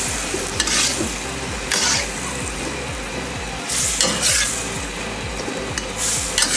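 Metal wok spatula stirring and scraping broccoli and carrots through hot curry liquid in a wok, over a steady sizzle. Several separate scraping strokes stand out, a second or two apart.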